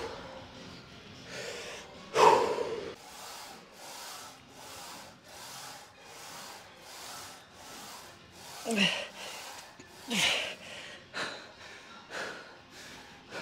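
A person panting hard, out of breath from a heavy training set: a loud breath about two seconds in, then quick, even breaths about two a second, and two louder groans falling in pitch later on.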